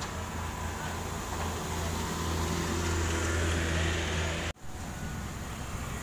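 A heavy engine running with a low, steady hum that grows louder over a couple of seconds, then cuts off abruptly about four and a half seconds in. A lighter mix of engine and road noise follows the cut.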